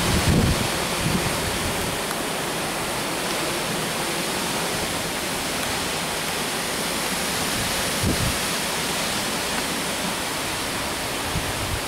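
Heavy thunderstorm downpour: a steady, even hiss of hard rain, with wind gusting against the microphone at the start and again about eight seconds in.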